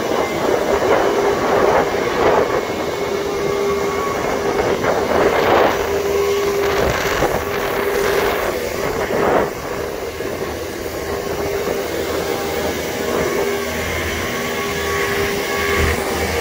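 Boat travel lift running as it rolls along with a motor yacht in its slings: a steady mechanical drone with a constant whine, with louder rushes of rumbling noise in the first half.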